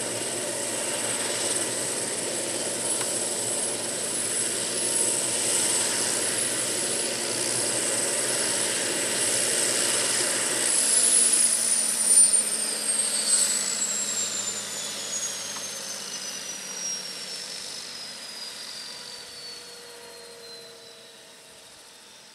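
Hughes OH-6A / MD369A helicopter's Allison turboshaft engine running on the ground with a steady high whine over the rotor noise. About halfway through, the whine starts falling steadily in pitch and the sound fades: the turbine is spooling down at shutdown.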